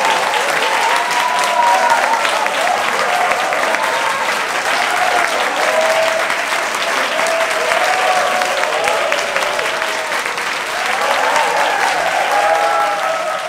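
Audience applauding in dense, steady clapping, with voices cheering over it.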